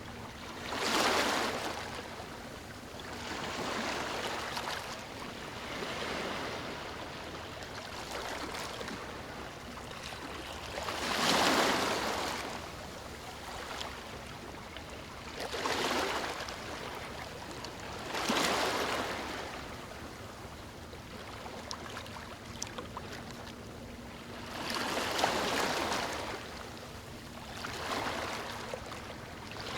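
Ocean waves breaking on a beach: repeated swells of surf noise every few seconds, each building and falling away, over a constant wash of water.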